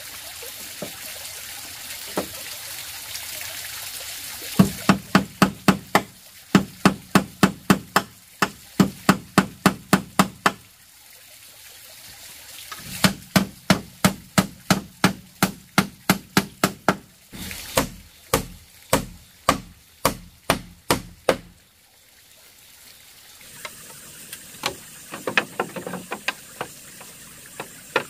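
A hammer striking a wooden post, in two long runs of steady blows at about three a second with a pause between, then a few scattered strikes near the end.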